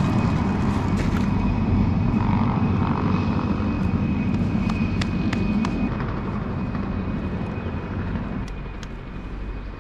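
Outdoor field recording: a steady low rumble with a thin steady high tone and a few scattered light clicks, slowly fading.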